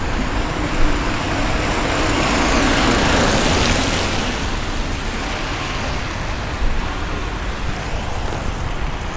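Street traffic, with one vehicle passing that swells to its loudest about three seconds in and then fades away.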